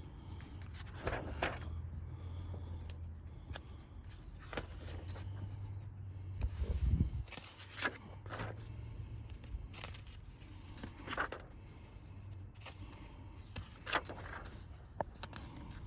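Paper pages of a printed service-record report being handled and leafed through: scattered rustles and light clicks over a low steady hum, with one dull bump about seven seconds in.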